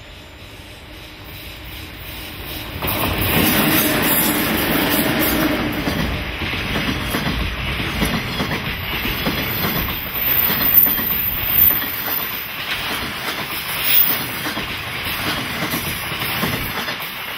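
Container freight train hauled by double-headed JNR Class EF64 electric locomotives passing close by on a curve. The sound jumps up sharply about three seconds in, then the container wagons roll past with wheels clattering over the rail joints. Around the middle there is a faint high squeal from the wheels on the curve.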